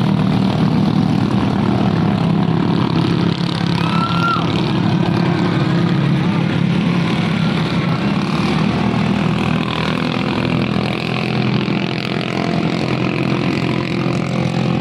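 Engines of racing jukung boats running steadily at high revs, with a brief voice-like call about four seconds in.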